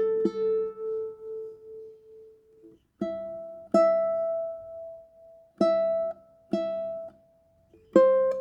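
Tenor ukulele played slowly, with single notes and chords plucked one at a time and each left to ring and fade. There is a pulsing ring from the first notes, a short pause near three seconds in, then a handful of new plucks.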